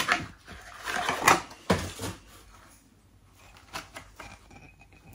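Cardboard mug box being handled and opened: a run of clicks and scrapes for the first two seconds as the ceramic mug is slid out, then quieter, with a few light taps a little later.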